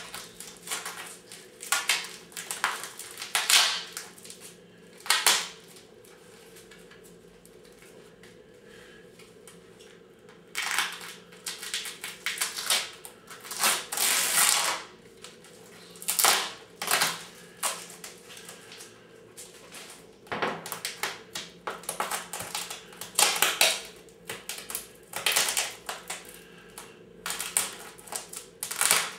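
White plastic bag wrapping crinkling and rustling in irregular crackly bursts as it is pulled and handled, with a quieter pause of a few seconds after about six seconds.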